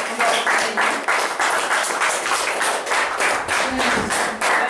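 A small group clapping hands in applause, many quick claps running together.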